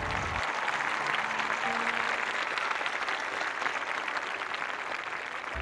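Crowd applause: many hands clapping steadily, with faint background music underneath.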